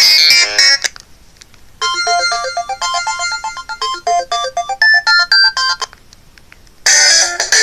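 LG Revere 3 flip phone playing its built-in Verizon ringtones one after another, loud from its own speaker. One tone ends just under a second in, a short pause follows, then a melodic tune of quick electronic notes, another pause, and a brighter, busier ringtone starts near the end.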